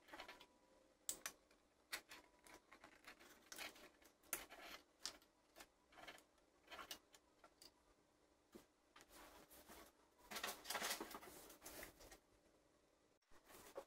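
Faint scattered clicks, taps and rustles of a yellow plastic toy's parts and its thin flexible circuit sheet being handled, with a denser stretch of rustling about ten seconds in.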